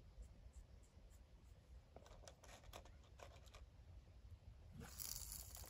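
Near silence: quiet outdoor ambience with a few faint clicks and a brief soft hiss near the end.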